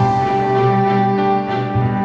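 Background music: sustained melodic notes, soft orchestral in character.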